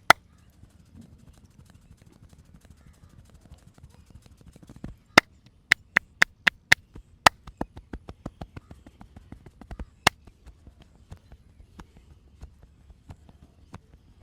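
Sharp percussive strikes of hands working on the body during a massage. There is one loud strike near the start, then a quick run of about seven loud strikes roughly five to seven seconds in, with one more about ten seconds in. Lighter taps fill the gaps.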